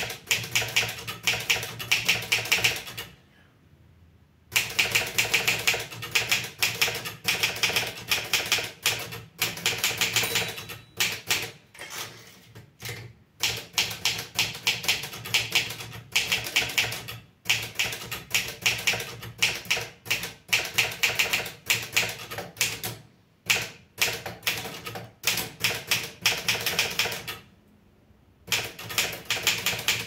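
Olivetti Studio 46 manual typewriter being typed on: rapid key strikes clacking in quick runs, broken by short gaps, with two longer pauses of about a second, one near the start and one near the end.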